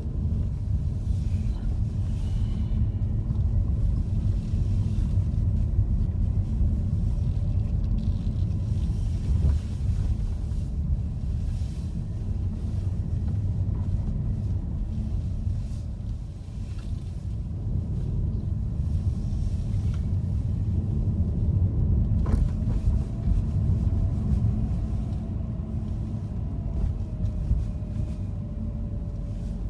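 A car being driven, a steady low rumble of engine and road noise. A sharp click comes about 22 seconds in, followed by a faint whine that rises and falls near the end.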